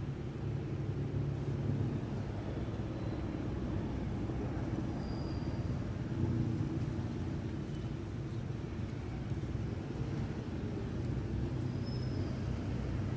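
Steady low rumble of a motor vehicle engine running, with two brief faint high chirps.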